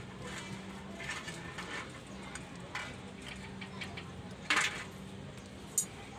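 A metal rod scraping and clinking inside a truck's greasy rear wheel hub, a few short separate scrapes with the loudest about four and a half seconds in, then a sharp metallic click near the end.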